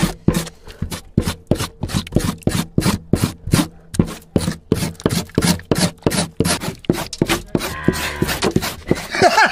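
Knife blade scraping wet, lime-coated cow tripe in quick, even strokes at about three or four a second, stripping off the lining to clean it. The strokes stop near the end.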